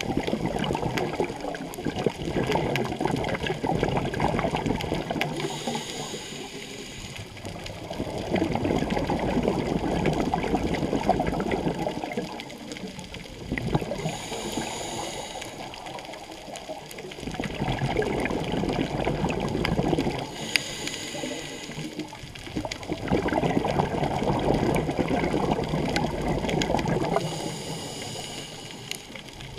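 Scuba diver breathing through a regulator underwater: long spells of exhaled bubbles gurgling, each followed by a short hissing inhalation, about four breaths in a slow, even cycle.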